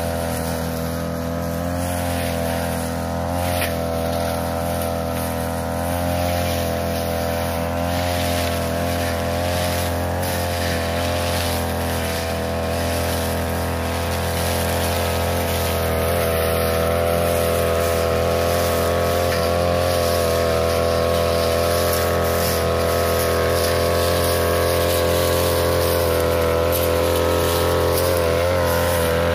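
Backpack brush cutter's engine running at steady high speed as its 45 cm blade cuts through tall cogon grass, the engine note wavering slightly under load. It gets a little louder about halfway through.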